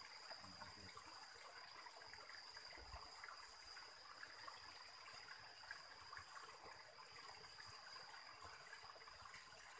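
Faint trickle of shallow stream water running over rocks, an even soft hiss, with a thin steady high tone above it.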